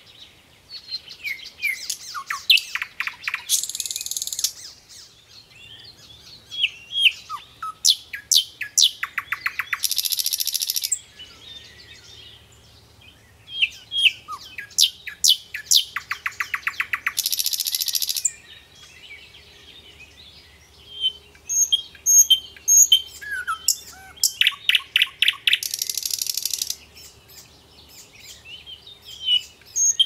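Songbird singing: repeated phrases of fast trills that end in a high buzzy flourish, about every seven seconds, with scattered chirps in between.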